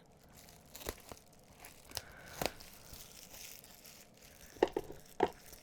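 A parcel being torn open, its packaging crinkling and rustling, with a few sharp crackles, the loudest near the end.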